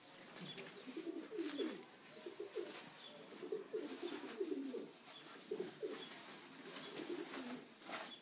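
Domestic pigeons cooing, several calls overlapping one after another, with faint high chirps about once a second.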